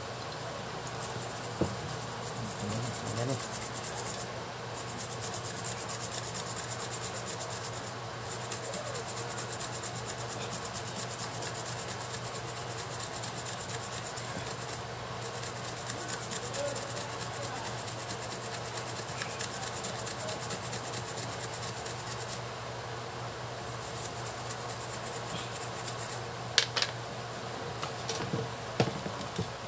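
A small brush scrubbing a circuit board in rapid short strokes, pausing briefly a few times. This is the ECU board being cleaned with solvent around the newly soldered injector driver IC. A few sharp clicks near the end.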